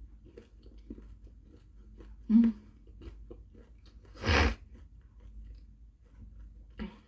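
Someone chewing a piece of chocolate bar with soft, crunchy ticks. There is a short loud low hum about two and a half seconds in, and a louder burst of breathy noise just after four seconds.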